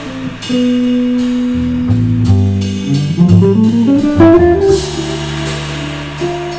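Live jazz trio playing a slow ballad: guitar melody with held notes over low bass notes, and a rising run of notes about halfway through.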